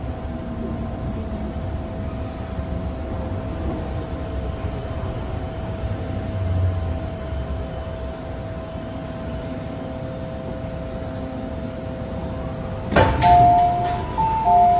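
MTR M-train passenger car running noise with a steady whine as the train comes to a stop. About 13 seconds in, the doors unlock with a sharp clunk and slide open to a two-tone chime.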